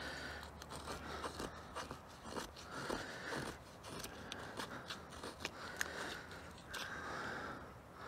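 Knife blade scraping a stick of resin-rich fatwood to raise fine shavings for tinder: several rasping strokes, with small ticks and clicks between them.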